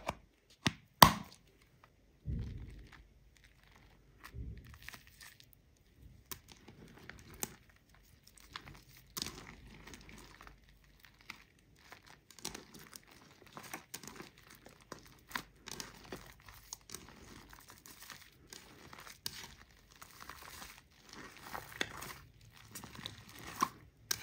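Hands squeezing and kneading shaving foam into slime, making irregular soft crackles and squelches. A sharp knock sounds about a second in, and a dull thud follows a little later.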